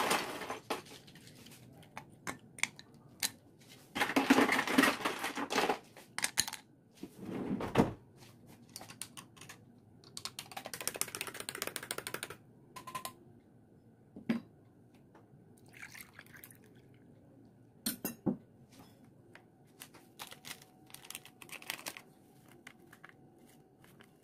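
Kitchenware handling at a drinking glass: a series of clinks and knocks as ice cubes go into the glass, then liquid poured in for several seconds near the middle, with scattered spoon and glass clicks afterwards.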